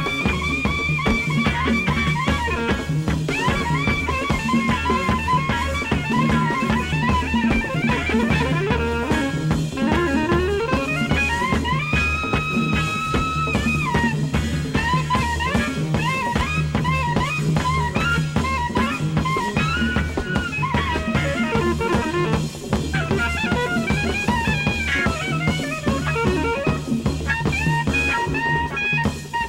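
Live jazz-rock band: soprano saxophone soloing in quick, bending runs over a repeating electric bass line, drum kit and electric guitar.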